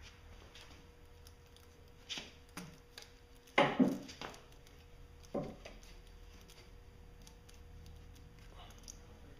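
A few short knocks and rubbing scuffs as a rubber coolant hose with a metal hose clamp is handled and worked onto a pipe on the engine. The loudest is a pair of scuffs about three and a half seconds in.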